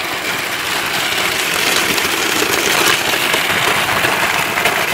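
Frozen-drink maker running, shaving ice from its top reservoir down into the blender jar: a loud, steady grinding noise.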